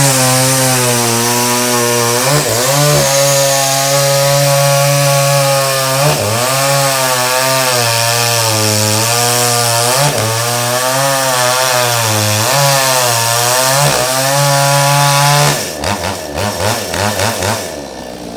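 Chainsaw running at high speed, its pitch sagging and recovering several times as if the chain is biting into wood. Near the end it drops to a lower level and is revved in a few short bursts.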